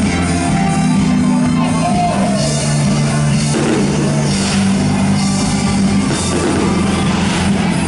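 Loud rock music with a singer.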